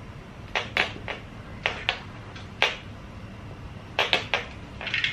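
A cat toy being knocked and bitten about, making about ten light, sharp clicks and taps in small clusters over a low steady hum.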